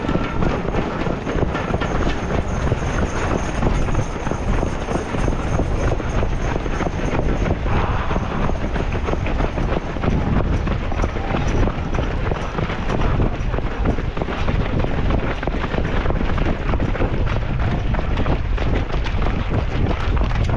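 Strong wind buffeting the microphone of a runner's camera, a steady loud rumble, with running footsteps underneath.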